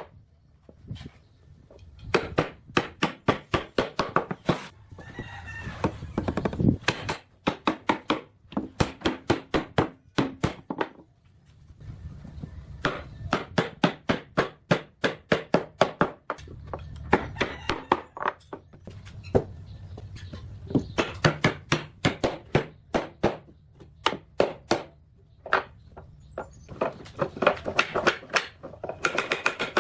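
A hand tool striking wood: rapid runs of sharp knocks and taps, several a second, broken by short pauses.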